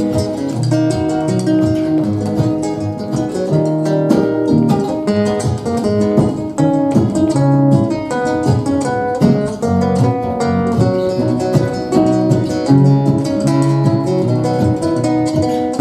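Acoustic guitar playing an instrumental interlude between sung verses of a song, with plucked and strummed chords throughout.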